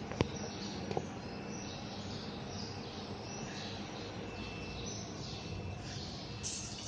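Steady workshop background noise with short, high chirping sounds throughout, and two sharp clicks about a second apart near the start.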